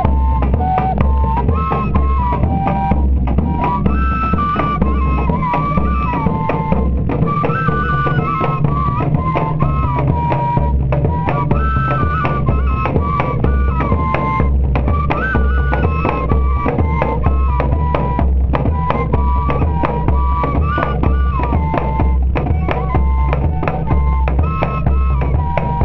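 Pífano (Brazilian cane fife) music: a fife plays a stepping melody around one pitch region over steady, dense drumming with a deep low beat.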